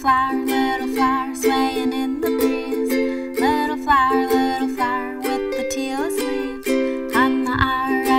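Ukulele strummed in a steady rhythm, playing the chords of a song.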